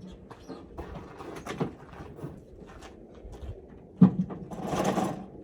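Clatter of gear being handled: scattered light knocks and clicks, then a sharp loud knock about four seconds in followed by a short scraping rustle.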